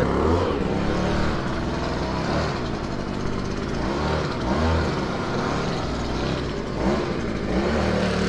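An engine running steadily, its pitch slowly wavering up and down.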